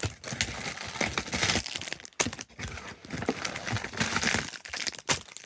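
Toy packaging crinkling and rustling as it is handled and pulled open, with sharp crackles throughout.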